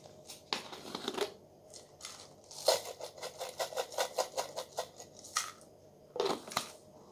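A clear plastic tub of fried shallots handled and shaken over a bowl of noodles: plastic rustles, then a quick run of rattling taps, about eight a second, for some two seconds, and a few more rustles near the end.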